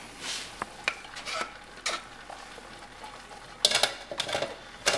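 Beans tipped into a cast-iron Dutch oven of browned beef and stirred in with a wooden spoon: soft scrapes and knocks of the spoon against the pot, loudest in a cluster about three and a half seconds in.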